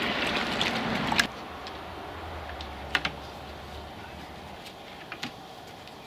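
Seat belt webbing being pushed into a plastic bucket of soapy water, sloshing for about a second and ending in a sharp click. Then a few scattered light clicks as a spring clamp fixes the belt to the bucket rim.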